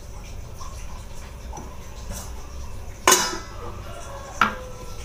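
Steel cookware clanging twice about a second apart, the first louder, each with a short metallic ring: a stainless steel lid being set down on the cooking pan.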